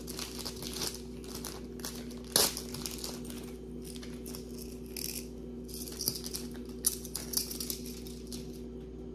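Jewelry pieces and their wrapping being handled: scattered crinkling and light clicks, with one sharper click about two and a half seconds in, over a steady low hum.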